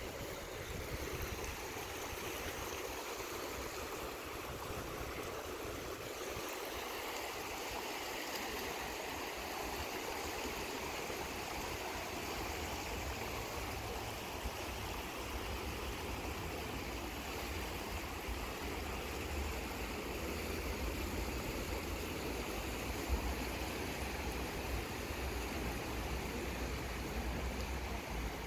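Rushing water of an artificial whitewater slalom channel pouring through its concrete banks and plastic slalom blocks, a steady rush.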